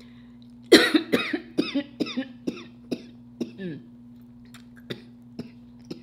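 A woman laughing in a quick run of short bursts for about three seconds, starting just under a second in, then a few short, quieter snickers.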